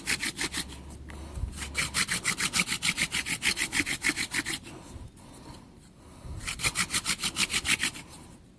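Hand-drill friction fire: a mullein spindle twirled between the palms in a cedar hearth board, rubbing and squeaking in quick, even strokes of about eight a second. It comes in three bouts with short pauses between.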